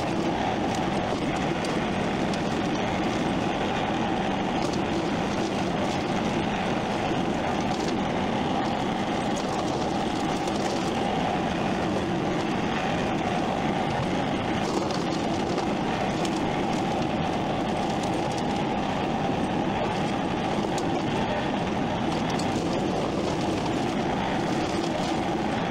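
A machine running steadily: a constant mechanical rumble that keeps the same pitch and level throughout, with no revving or pauses.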